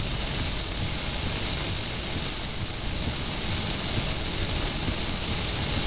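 Heavy rain hitting a moving car's windshield and body, heard inside the cabin over steady road and engine noise.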